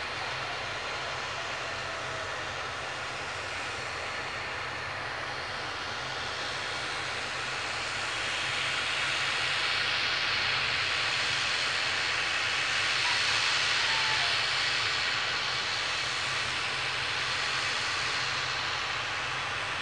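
An airplane's engines running steadily, with a thin high whine over the noise. The sound swells louder about eight seconds in.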